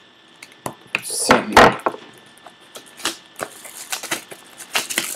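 Handling noise on a wooden table: scattered knocks and taps, with a short rustling stretch about a second in, as the camera and the card boxes are moved about.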